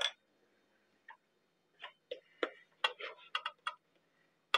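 A scattering of light, irregular clicks and knocks of a wooden spoon and a metal candy thermometer against a saucepan, as the pan of fudge mixture is stirred and the thermometer is put in.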